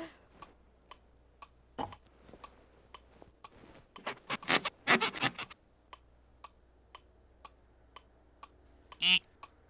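Steady ticking about twice a second, with a quick run of gulps as a cartoon character drinks from a cup, from about four to five and a half seconds in. Just after nine seconds comes a brief squeaky vocal sound.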